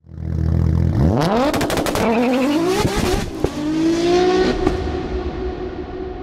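A car engine revving hard: a low steady run, then its pitch climbs in several steep sweeps, then it holds a steadier note and fades away.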